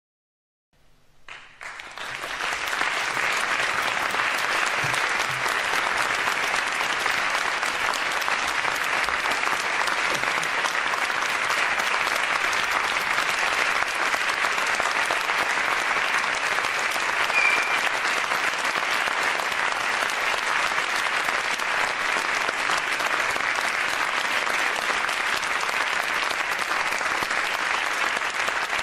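Audience applauding: after about a second of silence, dense clapping comes in, builds over roughly two seconds, then holds steady.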